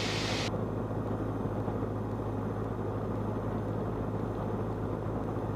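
Steady drone of a Cessna 172's piston engine and propeller in the cockpit, heard through the intercom. A brief hiss of radio static cuts off sharply about half a second in.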